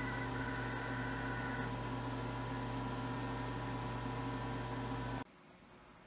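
Bridgeport R2E3 Boss 8 CNC mill running while it homes its axes: a steady hum with several high whining tones. The highest tones drop out about two seconds in, and the whole sound cuts off suddenly about five seconds in.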